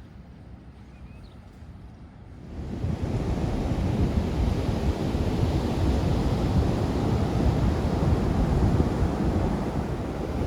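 Ocean surf breaking with wind buffeting the microphone. It comes in suddenly, loud and rushing, about two and a half seconds in after a quieter start.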